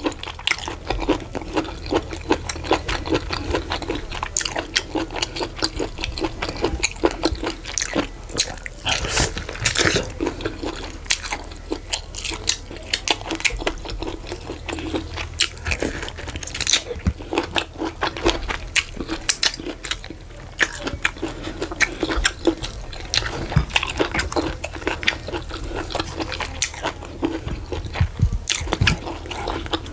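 Close-miked eating sounds: chewing and biting into meat and fufu with vegetable soup, with many irregular sharp wet mouth clicks and small crunches.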